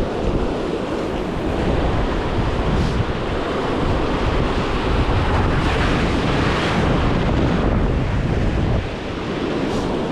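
Ocean surf washing in with wind buffeting the microphone, a steady rumbling hiss; one wave surges louder about six seconds in.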